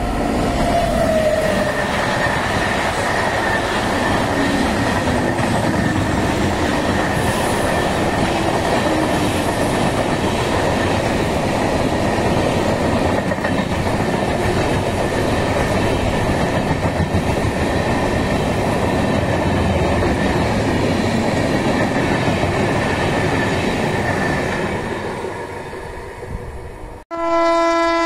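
Passenger train coaches running past at speed: a steady rumble of wheels on rail with clickety-clack, fading near the end. Then, after a sudden cut, an electric locomotive's horn sounds one steady, loud blast in the last second.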